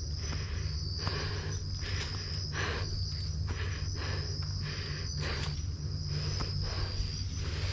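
Crickets trilling steadily at night, with a regular rhythm of steps along a forest dirt trail, roughly one every half second to second.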